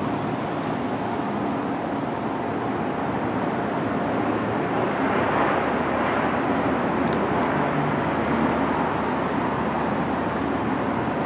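Sikorsky UH-60M Black Hawk helicopter in flight, climbing out after takeoff: a steady rushing drone of its main rotor and twin turbine engines, with a faint whine, growing louder about halfway through.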